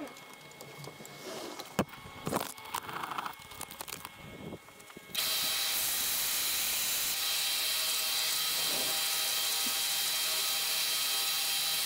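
A few scattered knocks and taps, then about five seconds in an electric power tool switches on abruptly and runs steadily with a high whine.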